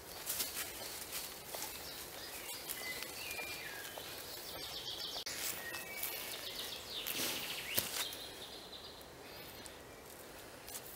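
Hand brace with an auger bit boring into a wooden log, with crunching and clicking as the bit cuts, while birds chirp a few short notes. Later there is a rustle in dry leaves and a single sharp knock.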